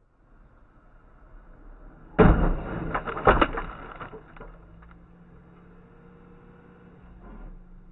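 Vehicle collision: a sudden loud crash about two seconds in, a second hard hit about a second later, then debris clattering and dying away.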